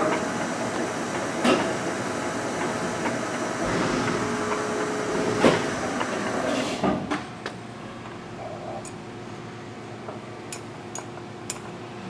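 Large engine lathe (1982 Tuda Jumbo 1250/4000) running, its spindle and big four-jaw chuck turning with a steady hum and a few knocks. About seven seconds in the sound drops as the spindle is stopped, followed by several light clicks of the headstock speed levers being worked.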